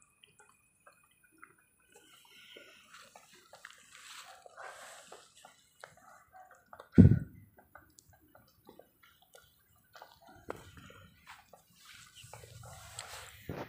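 Dry grass and dead leaves rustling and crackling under a small kitten's paws, in scattered small clicks. One loud low thump about halfway through.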